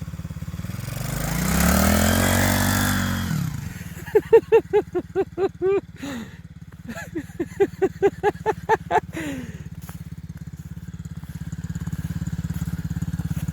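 The 110cc four-stroke single-cylinder engine of a children's mini ATV revs up and falls back over a few seconds as the quad spins, then idles steadily. After the rev come two runs of quick, evenly spaced pitched pulses, about five a second.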